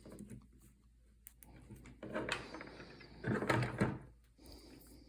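Clicking and scraping handling noise as a plastic zip tie is worked around the cracked section of a telescopic fishing rod, with two longer scraping bursts about two and three and a half seconds in.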